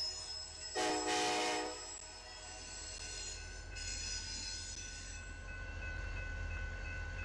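Diesel freight locomotive horn sounding one short blast about a second in, a grade-crossing warning. Then the low, steady rumble of locomotives, with a fainter high-pitched horn-like chord about four seconds in and a thin steady whine after it.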